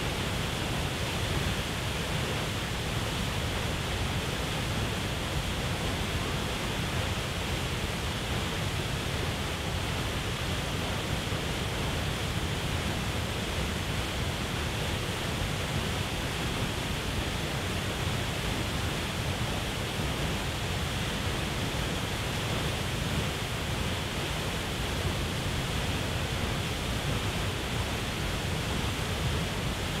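Large waterfall plunging into a pool: a steady, unbroken rush of falling water, heaviest in the deep low end.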